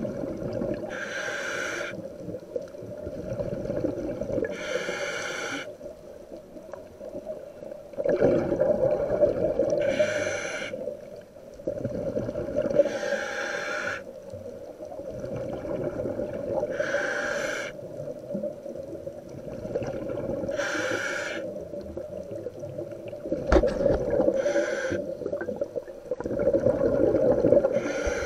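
A diver breathing through a scuba regulator in a full-face mask: short hissing inhalations about every three to four seconds, each followed by a louder, rumbling rush of exhaled bubbles.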